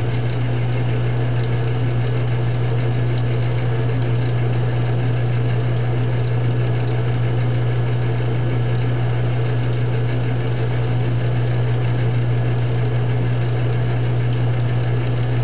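Metal lathe running steadily with a strong low hum, its spindle turning the workpiece while it is polished with Brasso on a rag.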